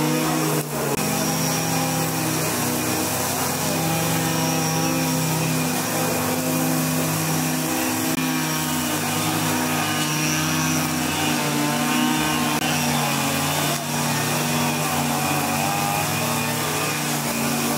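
Two-stroke brush cutter (string trimmer) engine running steadily as grass is cut, its pitch wavering slightly as the throttle shifts.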